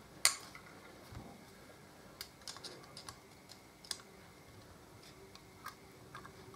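Scattered small metallic clicks and taps of a screwdriver working on a Harley-Davidson brake caliper, levering the tabs that hold the new brake pads back to the other side of the caliper. The sharpest click comes just after the start, with a few lighter ones spread through the rest.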